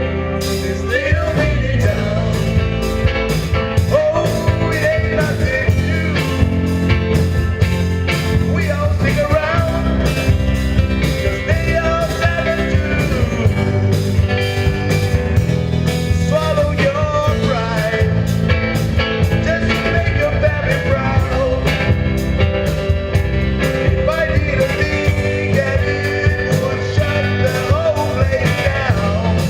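Rock-and-roll style music with a steady drum beat and a wavering melody line, possibly a singing voice.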